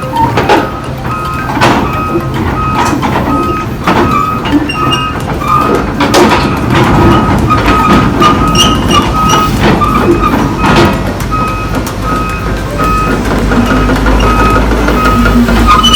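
A heavy vehicle's reversing alarm beeping steadily at an even rate over the low running of a diesel engine, with scattered clanks.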